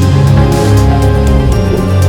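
Loud music with sustained chords and a heavy bass.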